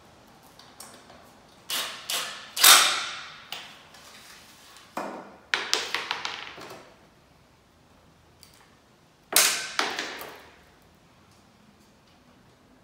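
Cordless power driver running in short spurts, driving screws through metal blade brackets into wooden ceiling-fan blades. There are three bursts, the loudest about three seconds in and another near ten seconds, each starting sharply and dying away over about a second.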